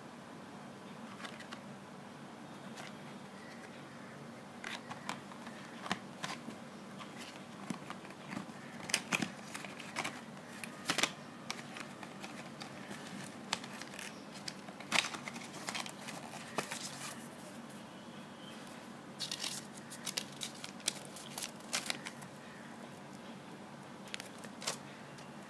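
Packaging of Movicol powder being handled: the cardboard box and its sachets rustle and crinkle, with scattered sharp clicks and crackles that come in clusters, over a faint steady low hum.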